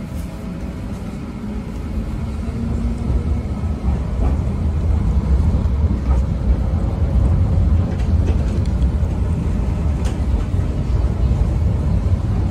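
Cabin rumble of a low-floor tram pulling away and running along its track. The deep rumble builds over the first few seconds and then holds steady.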